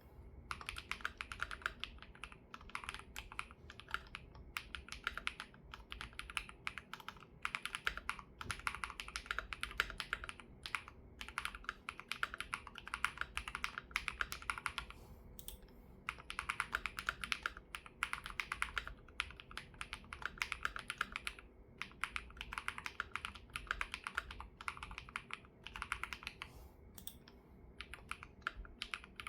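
Typing on an ROG Azoth Extreme mechanical keyboard with Y3x switches, its mounting set to Hard mode and its silicone dampening pads removed. Fast, continuous keystrokes come in long runs broken by a few brief pauses.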